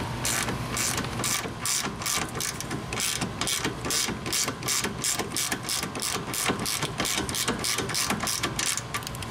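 Hand socket ratchet clicking in quick runs as it turns the new lower shock bolt in by hand, snugging it close to seated but not tightened.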